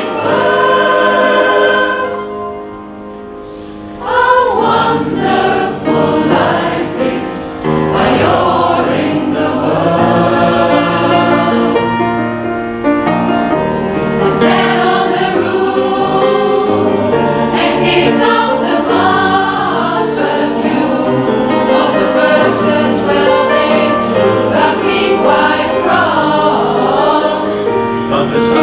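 Mixed choir of men's and women's voices singing with piano accompaniment. The full singing drops away briefly about two seconds in, leaving quieter held notes, and comes back in strongly about four seconds in.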